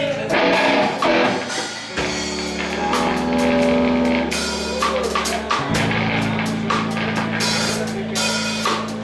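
Rock band playing live: a drum kit beats under held guitar and bass chords, which change about two seconds in and again just past the middle.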